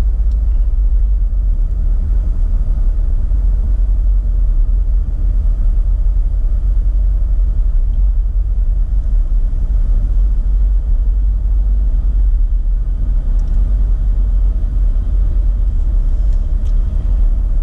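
Car driving at steady speed, heard inside the cabin: a continuous low road and engine rumble.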